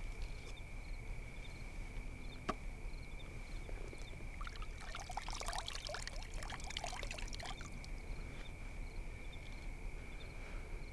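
Water pouring and trickling for about three seconds midway, over a steady chirping of night insects; a single sharp click comes about two and a half seconds in.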